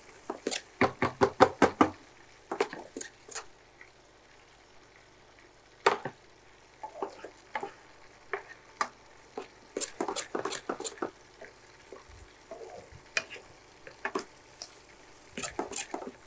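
A wooden spatula scraping and knocking against a frying pan while stirring food, in quick runs of taps about five or six a second with short pauses between the runs.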